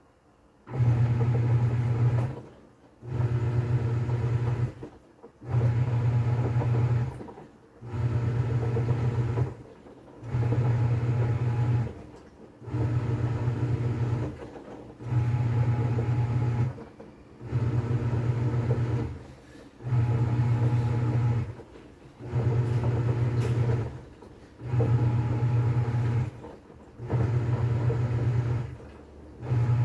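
Top-load washing machine agitating during its wash cycle: the pulsator motor hums in regular strokes of a bit under two seconds with short pauses between, as it drives the load back and forth. The agitation starts about a second in after a quiet pause.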